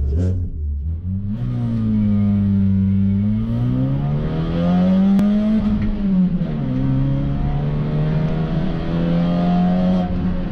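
Race car engine heard from inside the cabin, accelerating hard up a hill climb. The revs pick up sharply about a second in, then the engine note climbs and falls back with gear changes, with a clear drop about six seconds in.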